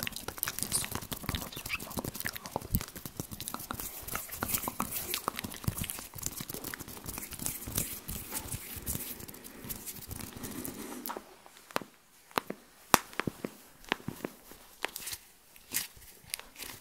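Close-miked ASMR mouth and hand sounds: a dense run of small wet clicks and rustles for about eleven seconds, then quieter, with scattered sharp clicks.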